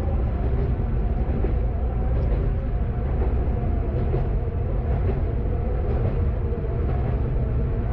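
Kanto Railway KiHa 532 diesel railcar heard from its driver's cab: a steady low rumble of the diesel engine and running gear.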